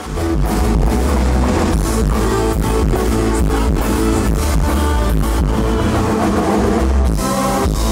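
Live band playing an instrumental pop-rock passage: bass guitar, drum kit and guitars keeping a steady beat, coming in loud at once after a brief dip.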